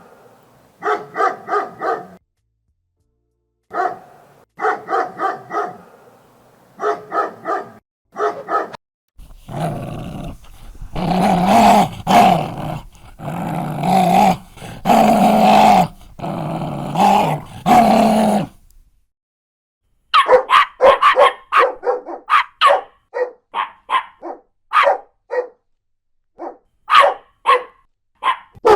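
Dogs barking, one recording after another with short silences between: a run of repeated barks, then deeper barks from a bigger dog in the middle, then a rapid string of barks near the end.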